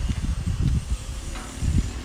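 Wind buffeting the microphone: an uneven low rumble that rises and falls in gusts.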